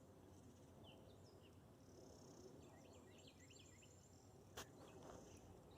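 Near silence with faint birds chirping: scattered short chirps and a quick run of them around the middle. A single soft tap comes about four and a half seconds in.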